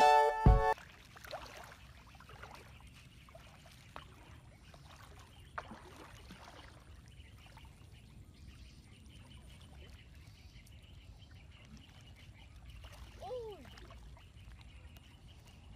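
A music jingle cuts off within the first second, then faint water sloshing and soft splashes as a person wades through shallow flood water, with a brief pitched call about 13 seconds in.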